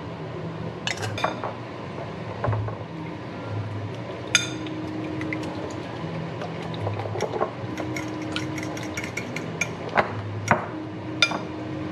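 A utensil clinking and tapping against a bowl while eggs are seasoned and beaten. There are scattered single clinks, a quick run of rapid taps past the middle, and soft background music underneath.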